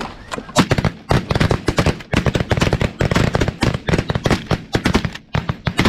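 Several hunters' shotguns firing a rapid barrage at snow geese, dozens of loud shots overlapping with hardly a gap.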